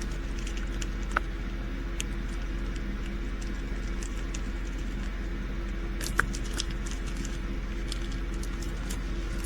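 Steady low electrical-type hum of room tone with a few faint clicks from small items being handled, the sharpest about six seconds in.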